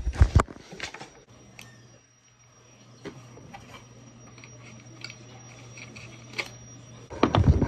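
Bumps and rustles of a handheld camera knocking against a padded jacket, then scattered light clicks and scratching as a clipboard form is handled and written on with a pen, over a low steady hum. More handling bumps and rustles come near the end.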